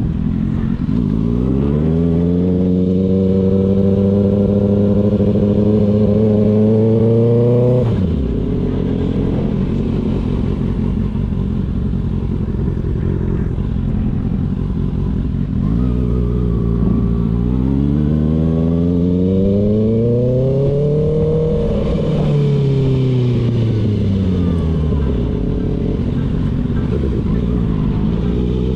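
Kawasaki ZX-6R's inline-four engine under way: the revs climb, hold and creep up, then drop sharply as the throttle closes about a third of the way in. After a steady stretch the revs climb again to a peak about three quarters of the way in, fall away, and start rising once more near the end.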